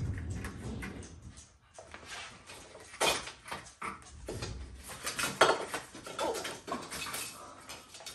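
Dishes and kitchen items clinking and knocking as they are handled, a run of short clatters that starts about three seconds in.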